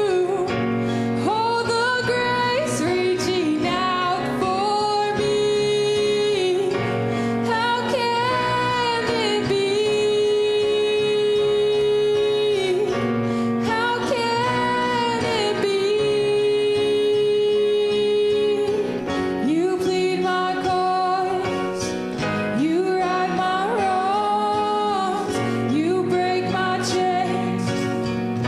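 A woman's voice singing a gospel song with instrumental accompaniment, holding long notes.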